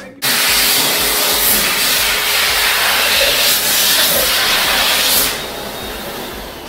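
Xlerator high-speed electric hand dryer blowing at full power with hands under it: a loud, even rush of air that starts abruptly and cuts off about five seconds in.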